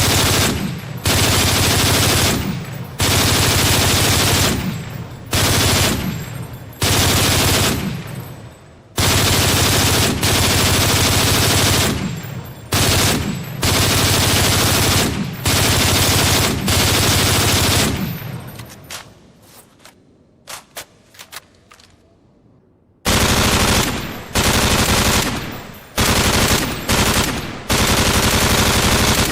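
Automatic gunfire sound effects: repeated bursts of rapid fire of varying length, each trailing off after it stops. About two-thirds of the way through, the fire dies away into a lull of a few seconds with a few faint clicks, then the bursts start again.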